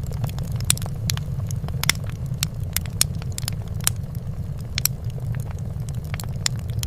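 Fireplace fire crackling: irregular sharp pops and snaps, several a second, over a steady low rumble.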